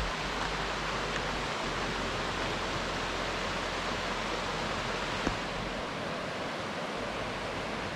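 Steady rushing of flowing water, like a stream running nearby. There is one faint tap about five seconds in.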